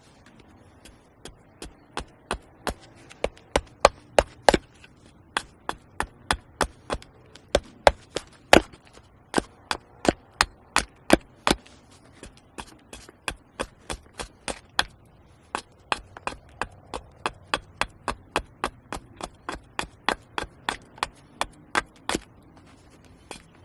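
Steady chopping into wood, sharp strokes coming about three a second, with a short pause a little past halfway.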